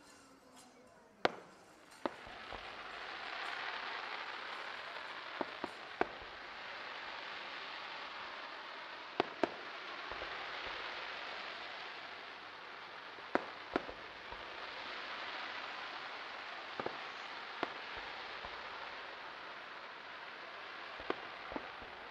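Aerial firework shells bursting: sharp bangs every few seconds, several in close pairs, over a steady crackling hiss that swells and fades as the glittering gold trails fall.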